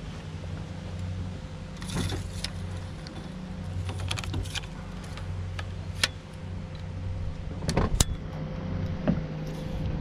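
A small engine hums steadily, with scattered knocks and clatters of gear being handled on a boat deck. The loudest is a pair of sharp knocks about eight seconds in.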